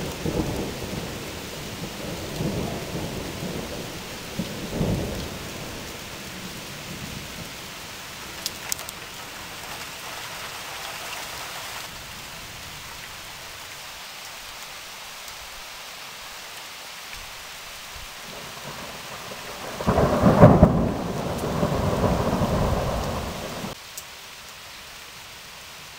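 Thunderstorm: thunder rumbling over steady rain. The rolling rumbles fade over the first several seconds, then a loud clap of thunder about twenty seconds in rumbles for a few seconds and cuts off suddenly.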